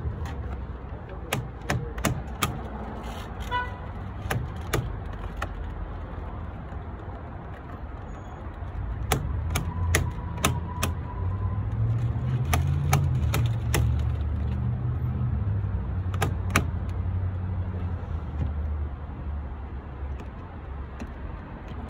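Low rumble of a running vehicle engine, louder for several seconds around the middle, with scattered sharp clicks and taps, some in quick pairs, from hand work on the car door and window.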